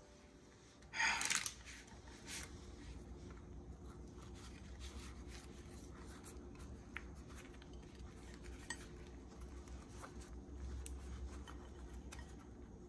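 Faint handling sounds of a filled flour tortilla being folded and rolled by hand on a plate: soft rustling and light taps, with a brief louder rustle about a second in.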